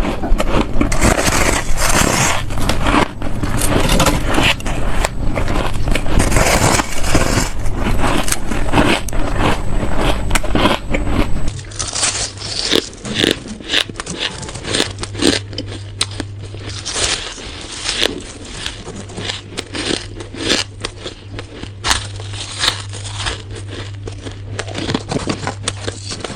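Close-miked ice being bitten and chewed: dense, continuous crunching and cracking for about the first half, then an abrupt change to sparser, separate crunches over a steady low hum.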